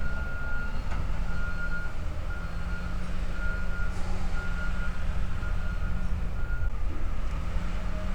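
Heavy machine's engine running steadily while its reversing alarm beeps a single high tone about once a second, stopping shortly before the end.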